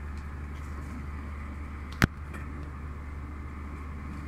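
Steady low mechanical hum, with a single sharp knock about two seconds in.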